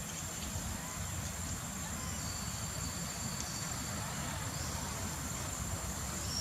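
Outdoor background of a steady low rumble with a thin, steady high-pitched insect drone. A second high insect tone joins for a second or two about two seconds in.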